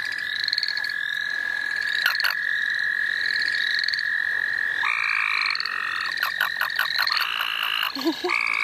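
Chorus of calling frogs and toads: a steady high trill held throughout, short rising pulsed calls repeating over and over above it, and a few louder short trills around the middle and near the end.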